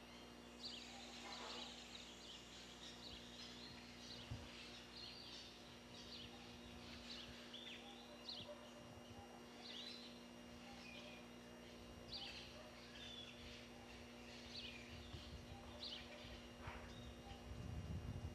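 Faint birds chirping in short, repeated calls, over a steady low electrical hum, with a low rumble near the end.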